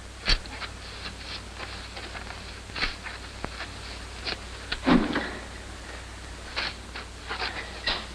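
A shovel scraping and knocking at intervals as manure is shovelled in a barn, with one louder thump about five seconds in, over steady old-film soundtrack hiss.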